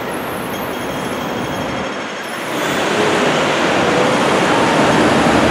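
Busy city street traffic: double-decker buses and cars running close by, a steady rumble and hiss that grows louder about two and a half seconds in.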